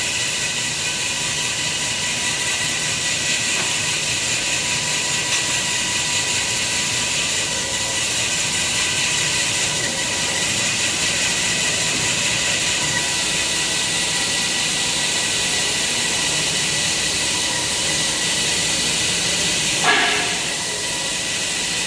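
Semi-automatic kitchen towel paper band saw cutting machine running: a loud, steady hissing whir with a faint steady high whine, and one short sudden burst about twenty seconds in.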